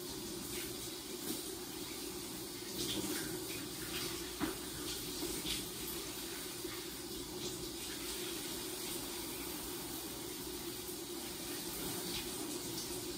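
Shower running steadily, water spattering on the tiles, with a few sharper splashes now and then.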